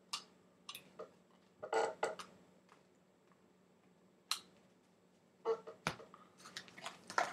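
Trading cards and card packs being handled: scattered light clicks and rustles, about a dozen short sounds at irregular intervals with quiet gaps between them.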